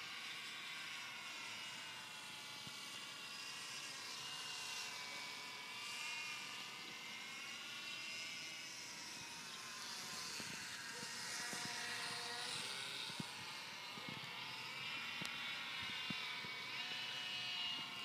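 Electric motor and propeller of a HobbyZone Mini Super Cub RC plane in flight: a thin whine whose pitch drifts up and down as the plane passes and the throttle changes.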